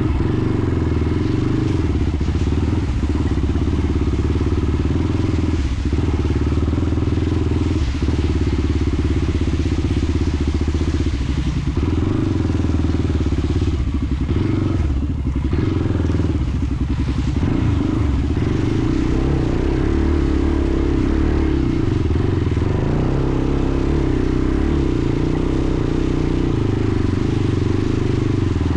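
Honda TRX400EX ATV's single-cylinder four-stroke engine running under throttle on a trail ride, the engine note dropping briefly every few seconds as the throttle is eased or gears are shifted, then holding steadier in the second half.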